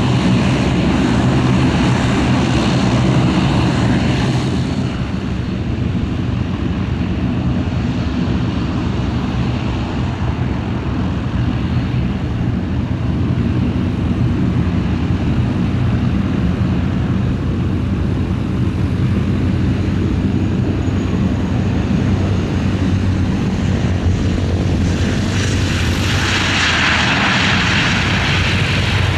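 Dash 8 turboprop airliners running, a steady propeller drone. It grows louder and brighter near the end as one rolls along the runway.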